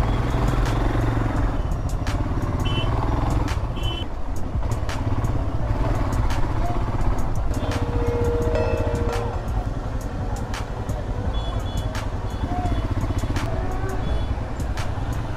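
Royal Enfield Himalayan's single-cylinder engine running at low speed, a steady low rumble as the bike crawls along. Short high beeps come twice, about three seconds in and again near twelve seconds, with a lower steady tone around eight seconds in.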